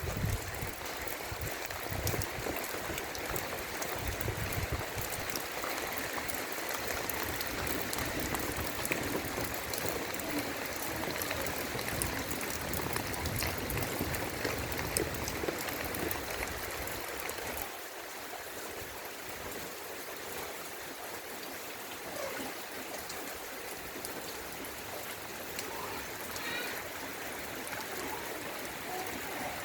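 Heavy rain falling steadily, a steady hiss of water that eases slightly about two-thirds of the way through.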